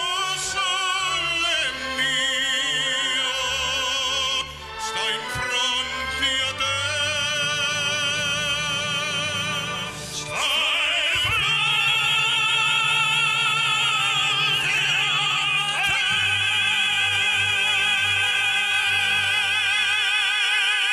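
Operatic tenors singing in full voice with wide vibrato over a steady low accompaniment. About ten seconds in they move into a long, loud held phrase.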